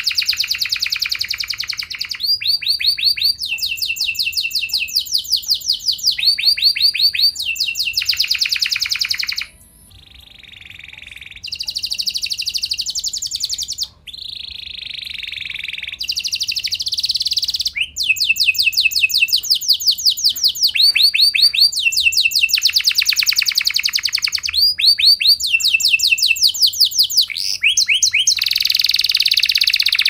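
Domestic canary in full song: phrase after phrase of rapid trills, each a fast run of the same sweeping note repeated many times, switching from one note type to the next every second or two. About ten seconds in the song turns softer and more rolling for several seconds, then the loud trills return.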